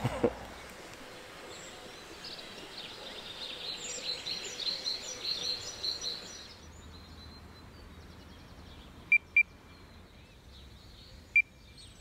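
Birds chirping for the first half, then three short single-pitch electronic beeps from a carp-fishing bite alarm: two in quick succession, a third about two seconds later. They register small taps on the line, which the angler takes for small white fish nibbling at the bait.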